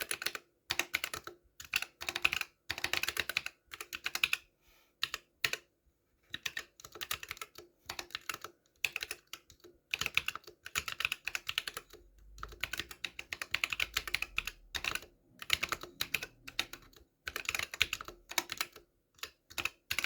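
Typing on a Drop + OLKB Planck V6 mechanical keyboard with Akko Lavender Purple tactile switches: quick runs of key clacks lasting a second or two, broken by short pauses.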